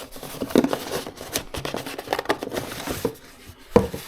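Packaging rustling and crinkling as the contents of a teleprompter box are unpacked by hand, with scattered clicks and one sharper knock near the end.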